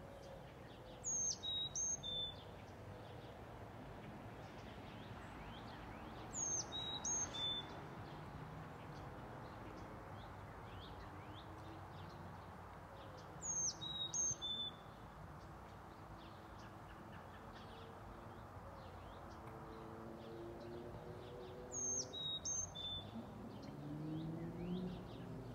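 A small songbird singing a short phrase of a few high notes that drop in pitch, about a second long and repeated four times several seconds apart, over a steady low rumble.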